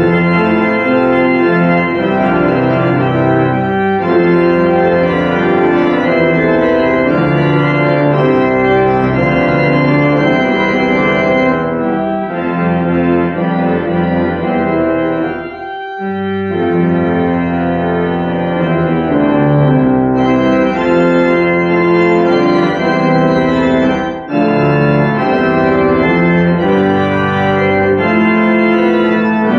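Church organ playing loud sustained full chords, breaking off briefly about halfway through and dipping once more near the end.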